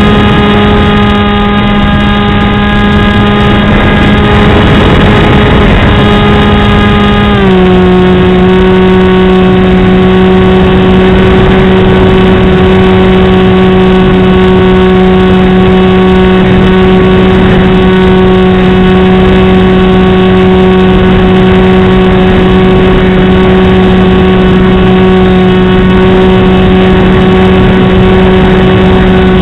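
Multiplex Easystar RC plane's electric motor and pusher propeller, recorded on board, running loud and steady as a buzzing hum over a rush of air. About seven seconds in, its pitch drops a step as the throttle is eased back, then holds steady.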